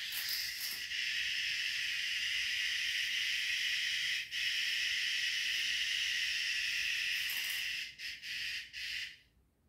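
A steady high-pitched hiss that flickers and cuts out near the end.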